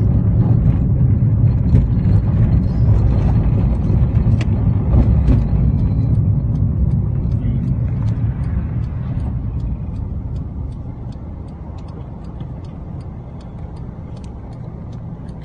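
Car-cabin driving noise: a low, steady rumble of engine and tyres while the car is under way. It eases off about two-thirds of the way through as the car slows down.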